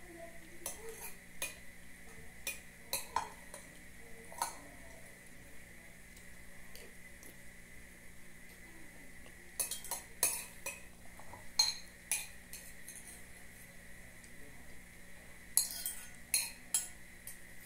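Metal spoon clinking and scraping against a glass soup bowl in scattered sharp taps. There are bursts of several quick clinks about ten seconds in and again near the end, as the bowl is tilted and scraped out.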